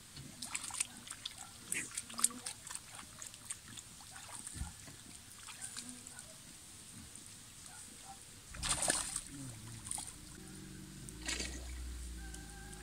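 Pond water at the bank splashing and trickling as it is handled, in small irregular splashes and drips, with two louder splashes in the second half.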